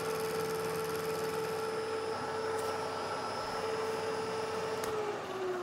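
Vertical milling machine running steadily with an end mill in the spindle, machining weld buildup on a connecting rod. Near the end it is switched off with a click and the spindle's hum drops in pitch as it winds down.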